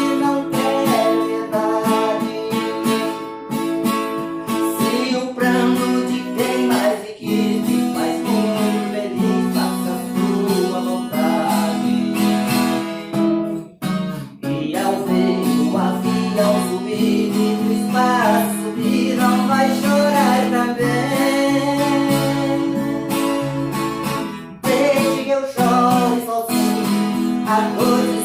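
Acoustic guitar strummed and picked in a song's instrumental passage, steady chords with a melody line above, briefly dropping away a few times.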